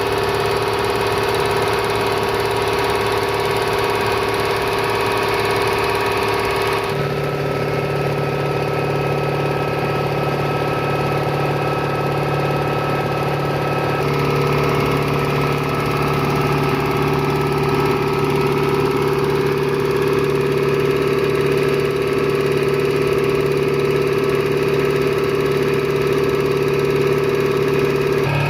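A 3 hp, 200-litre electric air compressor running steadily with a constant mechanical hum. Its tone shifts abruptly about seven seconds in and again about fourteen seconds in.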